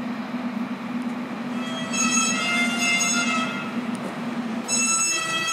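Train running with a steady low rumble, with high-pitched wheel squeal setting in about two seconds in and a fresh squeal starting near the end.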